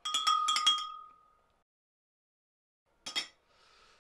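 Metal spoon being swished in a container of sanitizer to clean it, clinking rapidly against the sides with a ringing note that fades over about a second. A second short run of clinks comes about three seconds in.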